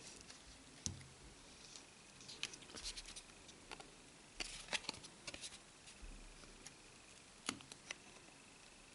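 Faint, scattered small clicks and light scrapes of a plastic card prying a phone's lightly glued motherboard free of its housing.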